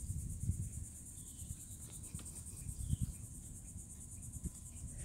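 Steady, high-pitched chorus of insects buzzing with a fast pulse, over a faint, irregular low rumble.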